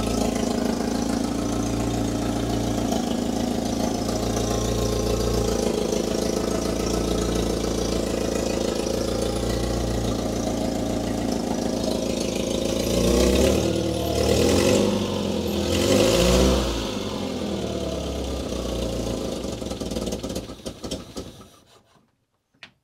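UAZ 452 Bukhanka's four-cylinder petrol engine idling with healthy oil pressure, an engine the owner judges healthy after a good compression test. Past the middle it is revved three times, the pitch rising and falling each time, then it drops back to idle and stops shortly before the end.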